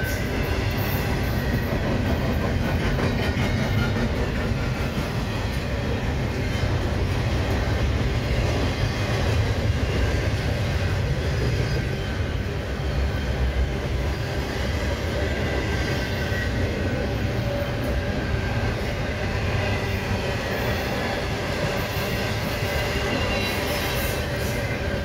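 Double-stack intermodal freight cars rolling past: a steady rumble of steel wheels on the rails.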